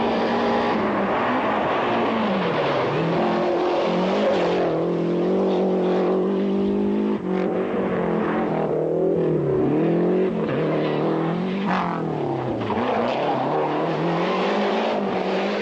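Rally car engine revving hard, its pitch climbing and dropping again and again through gear changes and lifts, with a few short cracks.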